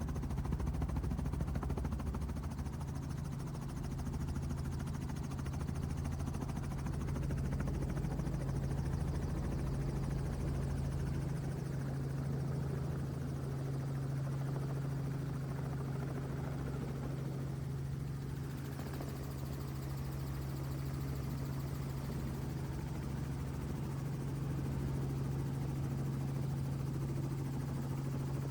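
Helicopter in flight, heard from aboard: a steady drone of engine and rotor with a strong low hum.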